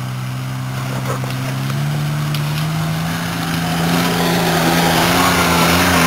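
Club Car XRT1550 side-by-side's three-cylinder diesel engine running as it drives through floodwater. The engine revs up about two seconds in and holds, while the water splashing grows louder as the vehicle comes close.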